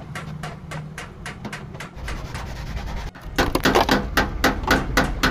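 Rapid repeated knocking or tapping, about four to five strokes a second, growing much louder about three and a half seconds in, over a low steady hum.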